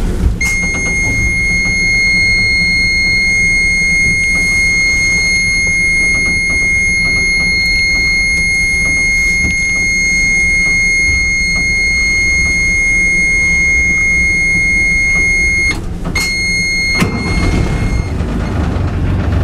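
Lifeboat engine panel warning buzzer sounding one steady high-pitched tone while the ignition key is on and the engine is not yet running, with the glow, oil-pressure and battery warning lamps lit. The tone breaks off about 16 s in, sounds again briefly, then fades and stops about 18 s in, over a steady low rumble.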